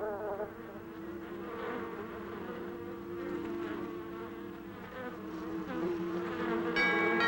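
Bees buzzing, a wavering hum. Near the end a bell-like chime strikes and rings on.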